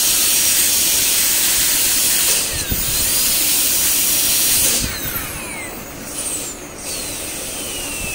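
High-speed air-turbine dental handpiece with water spray cutting a model incisor, a steady hiss with a high whine that slides down in pitch several times. It gets quieter about five seconds in.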